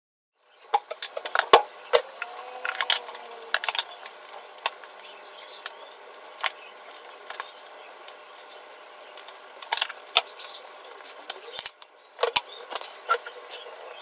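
Kitchen utensils clinking and tapping irregularly against dishes and a pan over a steady hiss from the cooking at the stove.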